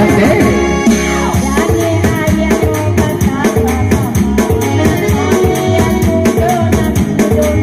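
An elderly woman singing an old song into a microphone over amplified band music with a steady beat and shaken, tambourine-like percussion.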